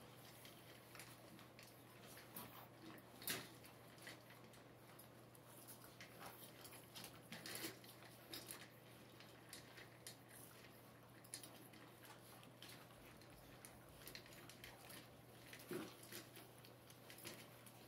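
Six-week-old boxer puppies eating from metal food bowls: faint, irregular clicks and taps of eating and of bowls being knocked, with a few louder clinks scattered through.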